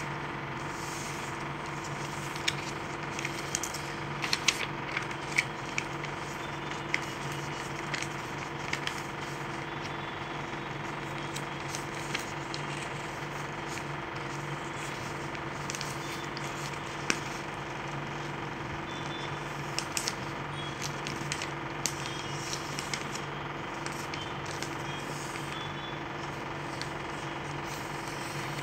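A sheet of paper crackling and rustling as it is handled and creased into a paper airplane, in short scattered clicks, over a steady low hum.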